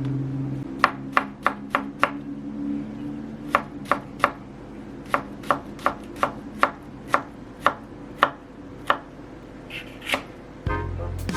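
Kitchen knife chopping on a cutting board: about eighteen sharp single cuts in short runs, with pauses between the runs.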